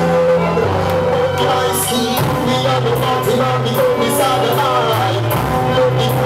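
A recorded song played loudly by a DJ: a singing voice over a steady beat and a bass line that changes notes every second or two.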